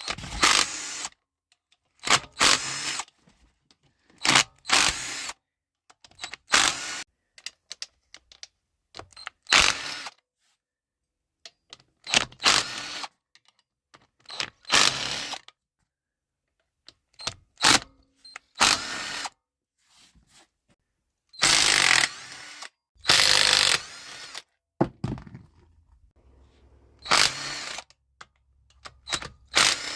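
Hand ratchet wrench turning bolts on a Honda Grom, in short bursts of ratcheting with pauses between, about fifteen strokes spread over the time.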